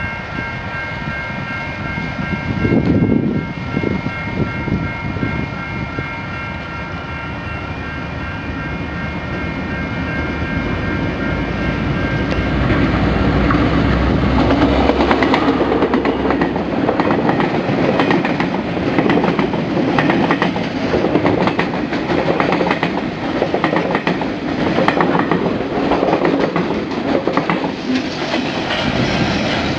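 Level-crossing warning signal ringing steadily while a KiwiRail DL class diesel-electric locomotive approaches, its engine rumble growing. About halfway through, the locomotive passes close by, and a train of freight wagons follows with a steady, loud clickety-clack of wheels over the rail joints.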